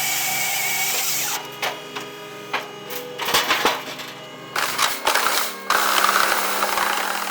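Firewood processing machinery at work: mechanical clatter and several sharp knocks, with a rush of noise in the second half, over steady background music.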